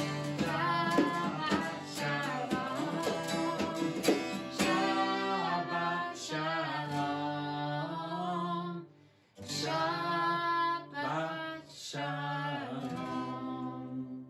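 A woman sings with a strummed acoustic guitar. The music breaks off briefly about two-thirds of the way through, then the last phrases end with the final chord ringing out.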